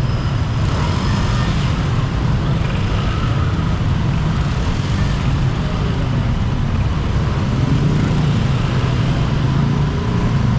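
Steady traffic noise of many motor scooters and cars in dense, slow city traffic, heard from the back of a moving motorbike: a continuous low engine and road rumble.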